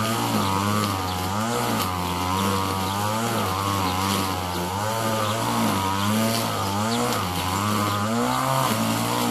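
Petrol grass trimmer running fast while cutting grass, its engine note wavering up and down as it works.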